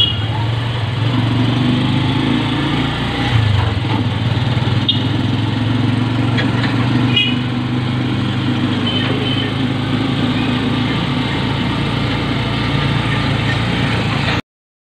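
Small motorcycle engine of a tricycle running steadily under way, heard from the sidecar, with a change in the engine note about three and a half seconds in. The sound cuts off suddenly near the end.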